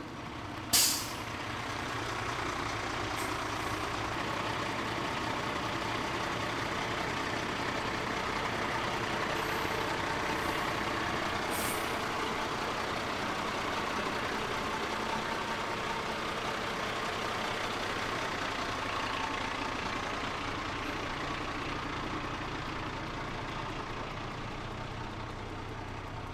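Dennis Sabre fire engine's diesel engine idling steadily, with one brief sharp noise about a second in.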